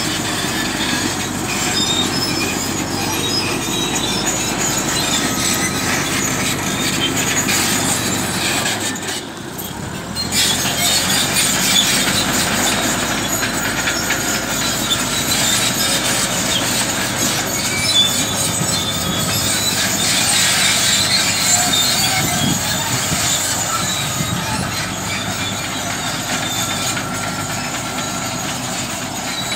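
Caterpillar D8K bulldozer working: its diesel engine running under load while the steel tracks squeal and clank. The sound dips briefly about nine seconds in, then picks up again.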